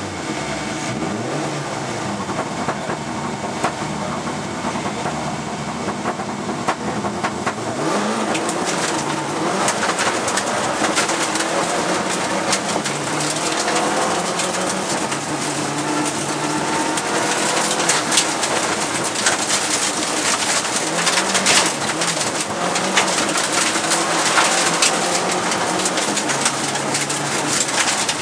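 Lancia Delta HF Integrale 16v's turbocharged four-cylinder engine pulling away and accelerating hard through the gears, revs climbing and dropping again and again, heard from inside the cabin. Gravel rattles and clatters against the car's underside, and the turbo is making only 1.1 bar of boost.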